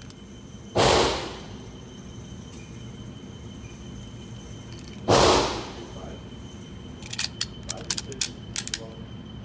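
Two loud gunshots about four seconds apart, each trailing off in a short ringing echo. Near the end comes a quick run of quieter sharp cracks.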